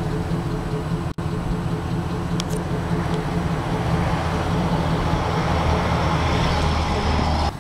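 Chevrolet 5.3-litre Vortec V8 idling steadily, heard from beneath the truck. The sound drops out for an instant about a second in.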